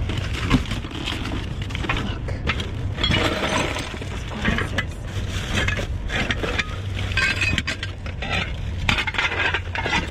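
Hard discarded items clinking and knocking together as they are rummaged through by hand in a dumpster, many short sharp knocks and clinks at irregular moments, over a steady low rumble.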